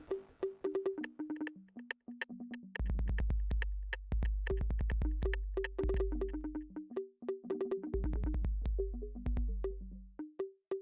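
Electronic synthesizer music: short, quick synth notes stepping between a few pitches, with sharp clicking percussion and long, deep bass notes that come and go.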